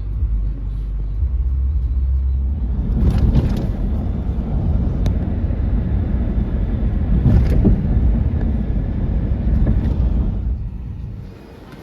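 A loud, steady low rumble of a vehicle running, with a couple of brief rattles, dying away near the end.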